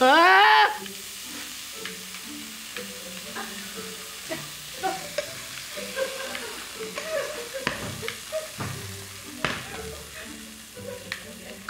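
Vodka sizzling in a hot pan, with a few sharp clinks of a utensil against the pan. A short melody of music plays softly over it, and a brief loud rising whoop opens the stretch.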